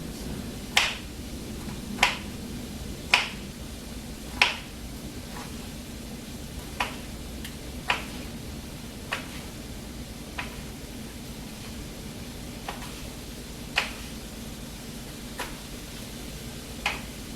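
A knife cutting a red pepper and striking a cutting board, about a dozen sharp knocks, roughly one a second at first and further apart later, over a steady low hum.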